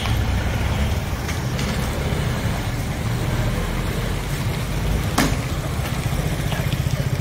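Engines of passing motorcycles and a scooter, a steady low rumble that starts to pulse near the end. A few short sharp knocks are heard over it; the loudest comes about five seconds in.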